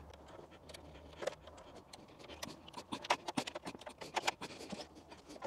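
Faint, scattered clicks and light scrapes of a Phillips screwdriver and wire as a negative lead is fitted into a screw terminal and tightened. The clicks come thickest through the middle.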